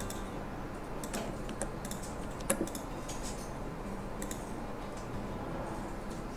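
Irregular clicks of a computer mouse, one louder about two and a half seconds in.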